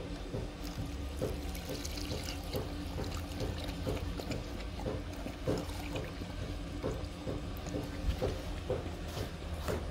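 Dog lapping milk with its tongue from a shallow plastic tray: a steady run of short wet laps, about two to three a second.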